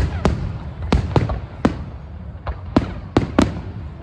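Fireworks going off in quick succession: sharp bangs at irregular spacing, about nine in four seconds, over a steady low rumble.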